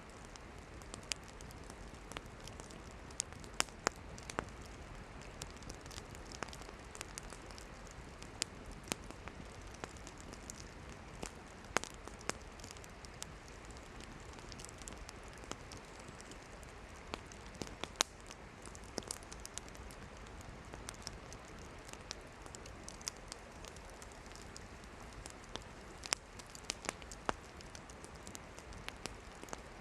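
Wood campfire burning: firewood crackling, with irregular sharp pops and snaps over a steady soft hiss.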